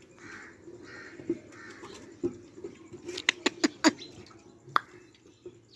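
Crows cawing a few times, then a quick run of four sharp clicks or knocks a little past halfway and one more about a second later, the knocks being the loudest sounds.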